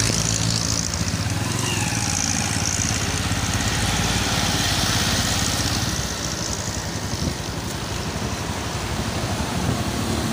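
Road traffic passing close by. A jeepney's diesel engine goes past at the start and fades within about a second, followed by the steady tyre and engine noise of further passing vehicles.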